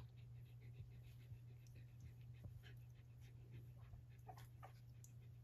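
Faint panting from an Australian terrier mother dog, with scattered small squeaks and scuffles from her young puppies, over a steady low hum.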